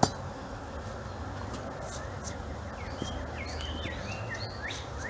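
Honeybees buzzing around an open hive, with a small bird chirping repeatedly in short rising and falling notes from about a second and a half in. A single sharp click right at the start is the loudest sound.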